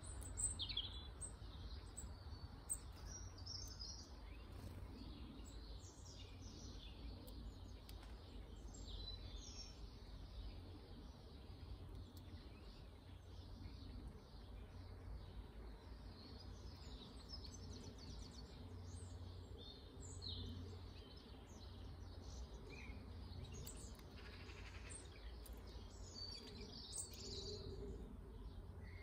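Garden birds chirping and calling, faint and scattered, over a low steady rumble.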